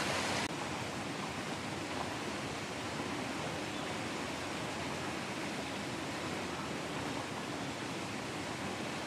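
A steady rushing noise with no distinct events, a little softer from about half a second in.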